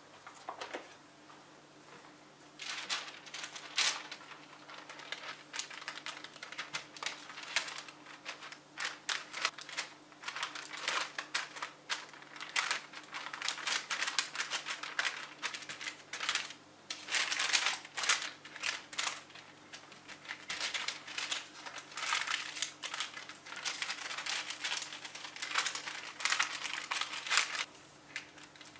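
Sheet of baking paper crinkling and crackling as it is folded over a block of butter and pressed flat by hand, in a dense run of short, irregular crackles that begins a couple of seconds in.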